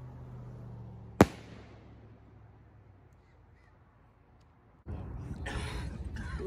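Firework rocket climbing after launch, its hiss fading away, with one sharp crack about a second in. After a few seconds of near quiet, a harsh rasping noise starts near the end.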